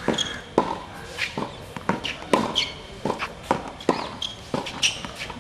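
Tennis rally on a hard court: sharp pops of the ball off racket strings and off the court surface, about two every second, with the player's shoes scuffing and squeaking between shots.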